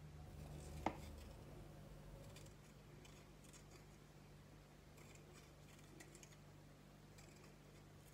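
Faint cutting of a green bell pepper held in the hand with a small kitchen knife: soft, scattered blade ticks, with one sharp click about a second in. A steady low hum sits underneath.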